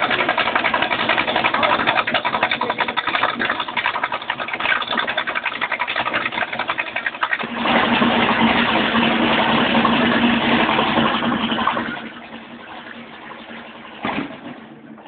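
A small engine running with a fast, even clatter. About seven and a half seconds in it turns louder and steadier with a held hum, then drops away sharply about twelve seconds in.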